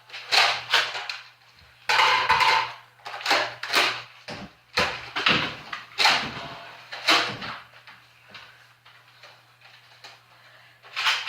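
Toy foam-dart blasters being primed and fired: a quick run of sharp plastic clacks and pops, about a dozen over the first seven seconds and thinning out after, over a faint steady low hum.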